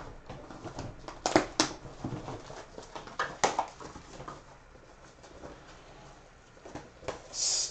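Trading cards and their packaging being handled: a few sharp clicks and light rustles, then a quiet stretch, and a short hiss near the end.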